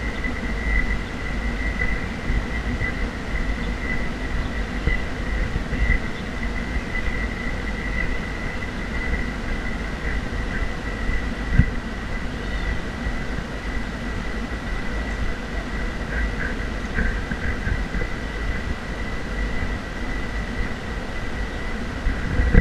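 Wind buffeting a handheld action camera's microphone: a steady, uneven low rumble, with a thin high whine running underneath and a couple of faint clicks.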